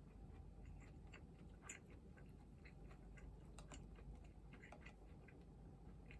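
Faint, irregular little clicks and taps of someone eating rice from a bowl with chopsticks.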